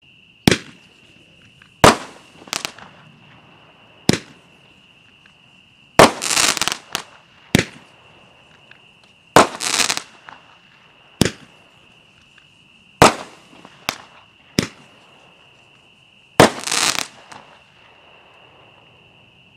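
Imperial Dragon Nitro Express roman candle, a mixed-effect consumer firework, firing its shots: a string of sharp pops a second or two apart, several of them running into a short crackle.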